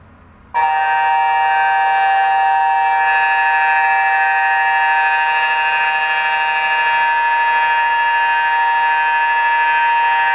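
InaTEWS tsunami early-warning siren sounding a test: one steady, loud chord of several tones that cuts in sharply about half a second in and holds level without rising or falling.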